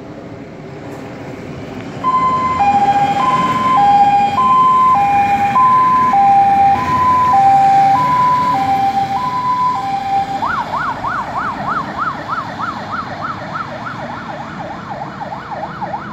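MAN TGM 13.280 fire engine's engine running, then its siren starting about two seconds in as a two-tone hi-lo, alternating a high and a low note. About ten seconds in the siren switches to a fast rising-and-falling yelp, fading slowly as the truck drives away.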